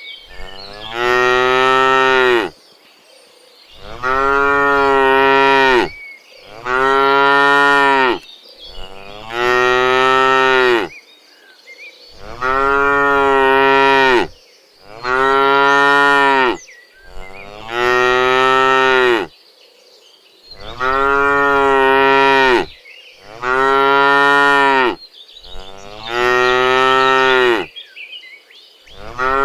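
Domestic cows mooing over and over: about eleven long, loud moos, each lasting about two seconds and rising slightly then falling in pitch, with short pauses between them.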